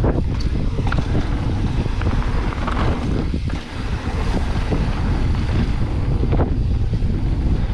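Wind rushing over the camera microphone of a mountain bike ridden fast down a dirt trail, with scattered knocks and rattles from the bike over rough ground.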